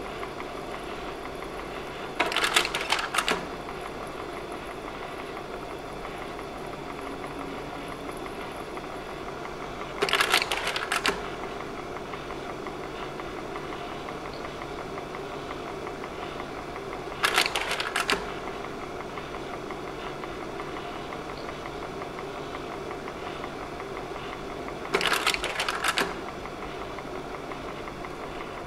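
Slide projector's fan motor running with a steady hum, and its slide-change mechanism clattering four times, about every seven and a half seconds, each change a burst of clacks lasting about a second.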